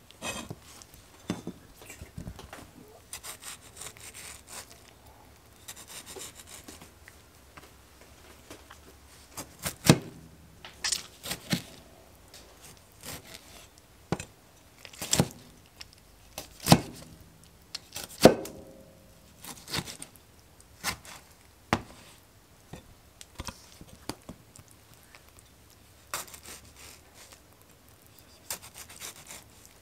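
Irregular knocks and rubbing, scraping handling sounds, with a few sharper knocks scattered through.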